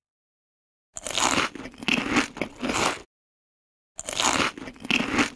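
Eastern gray squirrel crunching through a peanut shell with its teeth: two spells of crisp crunching, each about two seconds long, with a short pause between.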